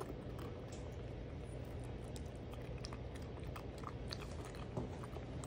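Maine Coon kitten eating wet cat food: irregular soft smacking and chewing clicks over a low steady hum.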